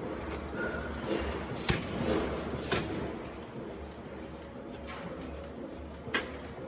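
Steady low machine hum with a few sharp metal clinks and scrapes as forging tongs and a bar handle a hot steel ring blank at the air hammer.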